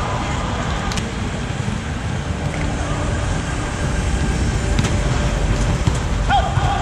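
Steady low rumble in a large volleyball dome, with a few faint sharp hits of a volleyball rally in play and a short squeak near the end.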